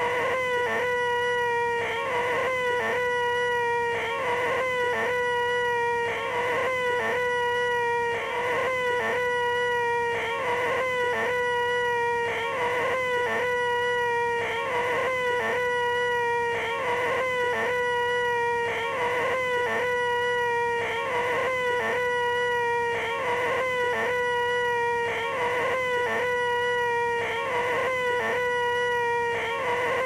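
A man's voice holding a high, nasal 'eeeeeh' drone, the 'most annoying sound in the world', looped over and over and restarting about every two seconds.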